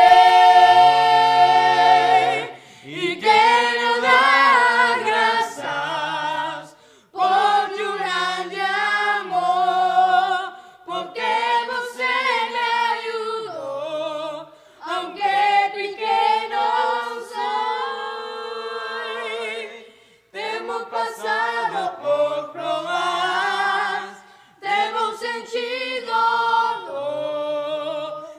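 A group of five boys singing a Spanish worship song a cappella in harmony, several voice parts at once, in phrases with short pauses between them.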